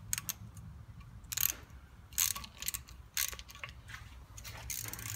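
Socket ratchet clicking in short, irregular bursts as grease-caked 10 mm bolts are undone from the back of a swivel hub housing.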